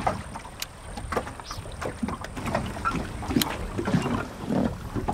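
Lake water lapping and slapping against a small aluminium boat's hull in short, irregular knocks, over a low rumble of wind on the microphone.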